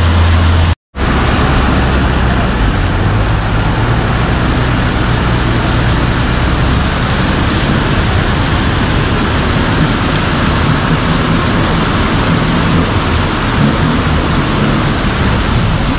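Off-road 4x4's engine running under heavy load as the vehicle churns through deep mud: a loud, steady drone. The sound cuts out completely for a moment about a second in.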